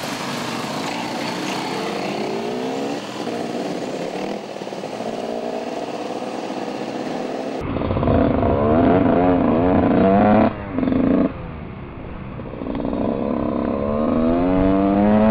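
Dirt bike engines revving as a group of riders pulls away. Then, about halfway through, a single dirt bike is heard up close, its engine climbing in pitch again and again as it accelerates through the gears. It eases off briefly and then pulls again.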